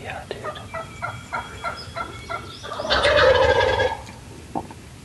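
Wild turkeys calling: a run of about nine short, evenly spaced notes, then a loud gobble from a tom a little under three seconds in. A single click near the end.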